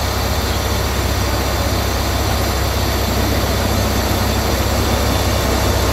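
CFR 060-DA (Class 60) diesel-electric locomotive's Sulzer V12 diesel engine running steadily at low power as the locomotive creeps forward, a deep, even rumble that grows slightly louder as it nears.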